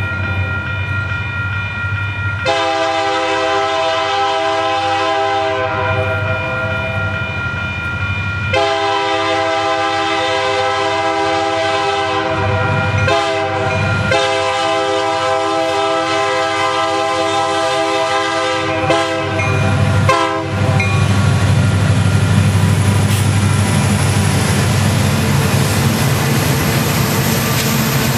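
Union Pacific EMD diesel locomotive's multi-chime air horn sounding a chord in several long blasts with short breaks, then a few quick short toots. About twenty seconds in the horn stops, leaving the locomotive's steady low engine rumble and train noise.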